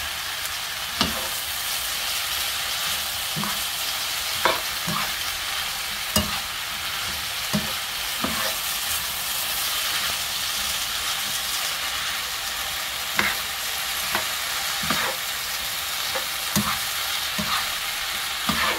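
Shredded potatoes and carrots sizzling in oil in a frying pan as they are stir-fried. The utensil knocks and scrapes against the pan in short, irregular clicks about every second.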